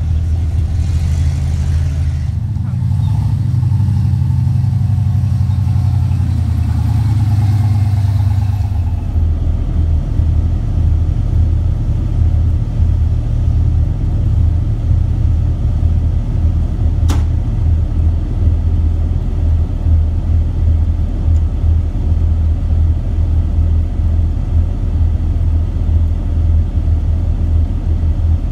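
Off-road Jeep engine working up a steep rocky trail: a deep, steady low rumble. The sound changes abruptly about nine seconds in, and a single sharp click comes about two-thirds of the way through.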